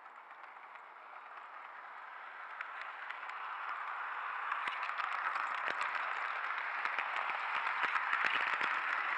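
N gauge model train rolling along the track, heard from a camera riding on it: a steady rattling hiss of wheels on rail that grows louder, with sharp clicks from about halfway through as it runs over the points.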